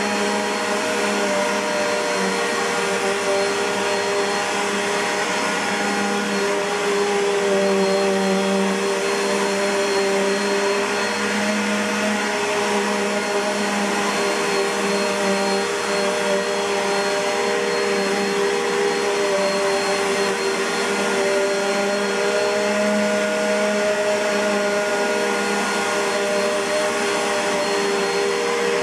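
Midea-built 2010 Bissell PowerForce bagged upright vacuum cleaner running steadily, a motor whine over a rush of airflow, its pitch wavering slightly.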